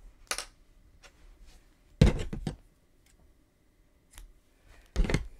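Handling sounds of sewing up crochet work with a bent yarn needle: a short scrape near the start, then two loud clusters of knocks and rustles, about two seconds in and near the end.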